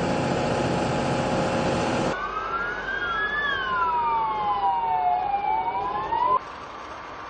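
A loud steady mechanical noise for about two seconds, then two emergency-vehicle sirens wailing slowly up and down, their pitches crossing each other. The sirens cut off abruptly about six seconds in, leaving a quieter steady hum.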